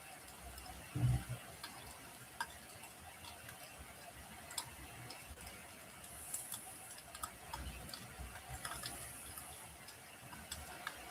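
Wood fire crackling in a fireplace: scattered sharp pops and snaps at an irregular pace over a faint hiss, with one louder low thump about a second in.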